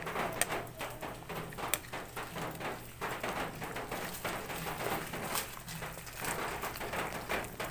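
Coconut milk bubbling in a metal pan while it is stirred with a spoon: irregular soft pops and taps, with a couple of sharper clicks in the first two seconds.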